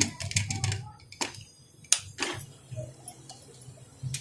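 Aluminium pressure cooker lid being fitted and locked by its handle: a few sharp, separate metallic clicks and knocks.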